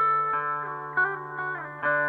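Instrumental background music on a plucked guitar: a new note struck about every half second, some sliding downward in pitch, over a steady low held note.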